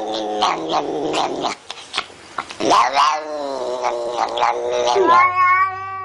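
Domestic cats yowling: a run of short, wavering yowls, then from about five seconds in one long, drawn-out yowl.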